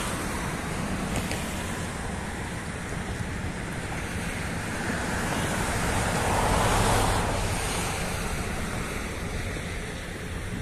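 Wind rushing over the microphone outdoors, a steady rush that swells to its loudest about six to seven seconds in and then eases.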